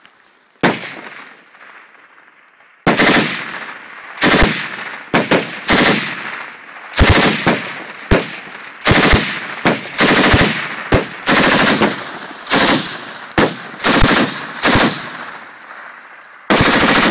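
M240 belt-fed 7.62 mm machine gun firing: a single shot about half a second in, then, from about three seconds in, a string of short bursts with brief pauses between them.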